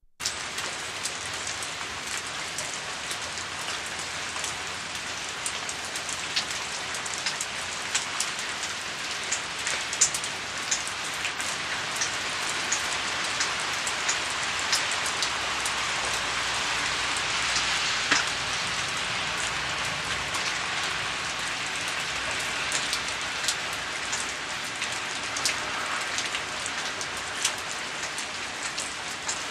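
Steady rain falling on a surface, with many individual drops pattering on top of an even hiss.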